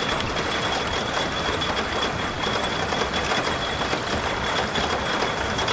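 Sound effect of a flume-ride boat travelling along its chute: a steady mechanical rumble and rushing noise with a thin, steady high whine over it.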